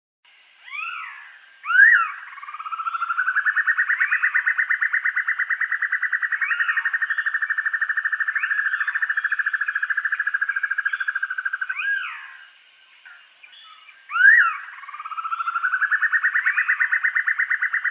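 Banded broadbill song: a few sharp up-slurred calls, then a long, rapid rattling trill that swells in and runs for about ten seconds. After more sharp calls, a second trill starts near the end.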